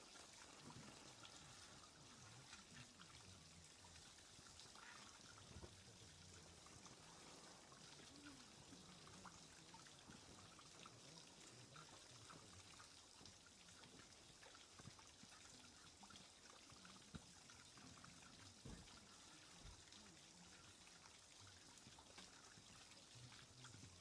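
Near silence: a faint, steady hiss with scattered soft ticks.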